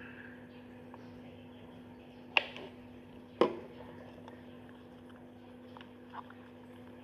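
Two sharp knocks about a second apart, a couple of seconds in, followed by a few faint ticks, over a steady low hum.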